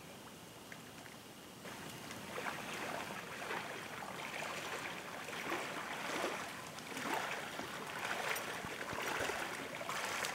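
Irregular splashing in shallow river water as a hooked trout thrashes and is netted by a wading angler. The splashing starts up under two seconds in and comes in uneven surges.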